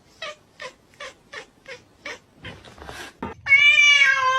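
A cat giving a long, loud, slightly falling meow, starting about three and a half seconds in. Before it comes a run of light taps, about three a second.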